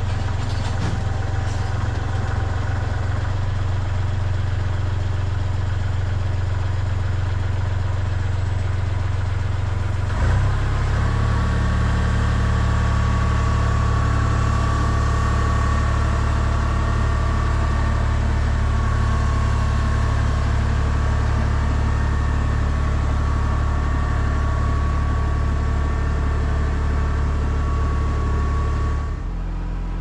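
Kubota L3301 tractor's three-cylinder diesel engine running steadily. About ten seconds in the engine speed rises and a steady whine joins it as the pallet forks lift the refrigerator.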